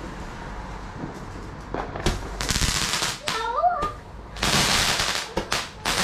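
Garden fireworks going off: three loud hissing bursts, each about a second long, the first about two seconds in.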